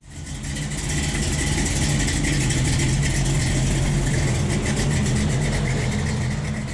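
A motor vehicle engine running steadily at idle with a low, even rumble. It fades in at the start and fades out at the end.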